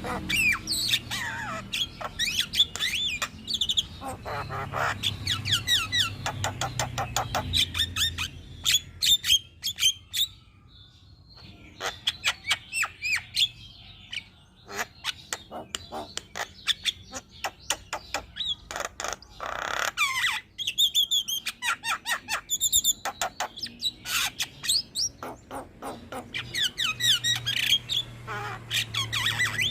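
Javan myna singing a fast, varied song of rapid clicks and gliding whistled notes. The song pauses briefly about ten seconds in, and there is a longer noisy note about twenty seconds in.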